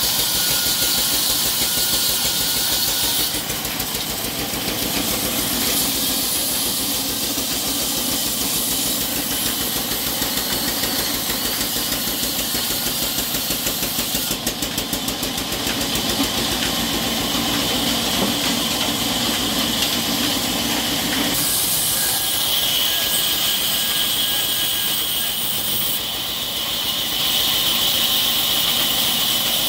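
Large vertical bandsaw running and ripping lengthwise through a log: a steady, loud machine noise with a strong hiss, its tone shifting a few times as the cut goes on.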